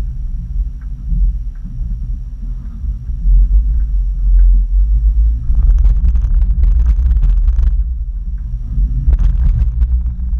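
Low, steady engine rumble of an off-road vehicle crawling slowly over a rocky dirt trail. Two stretches of rougher, rattling noise come through, around six to eight seconds in and again about nine seconds in.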